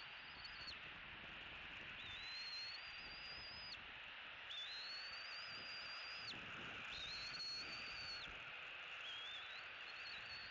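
A bird's thin, high whistled call, repeated five times about every two seconds; each note rises briefly, then holds level for a second or more before breaking off, over a steady background hiss.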